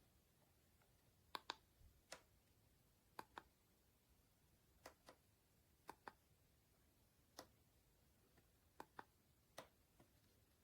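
Near silence broken by faint sharp clicks, about a dozen, mostly in pairs a fraction of a second apart.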